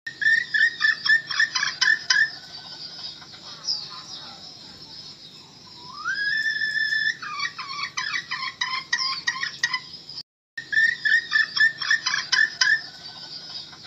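Red junglefowl hen calling, the decoy hen call used to lure wild junglefowl into a trap. Fast runs of short clucks fall in pitch; about six seconds in comes one long rising, drawn-out note, then more quick clucks. The recording breaks off for a moment just after ten seconds and the same calls start over.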